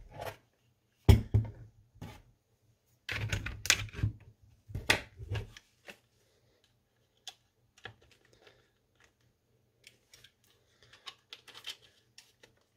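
Hard plastic clicking and knocking as a 3D-printed stock is handled and fitted onto an airsoft M4 lower receiver. There is a sharp knock about a second in, a cluster of clattering knocks a few seconds later, then scattered light clicks.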